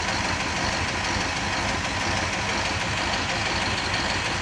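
Engine of a heavy hoisting vehicle, most likely the crane lifting the transit car, running steadily at idle.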